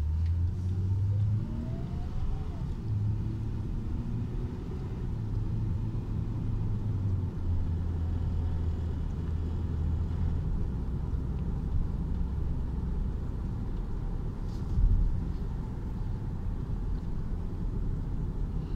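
Car driving, heard from inside the cabin: a steady low engine and road rumble. The engine note rises in the first few seconds, and there is a brief thud about fifteen seconds in.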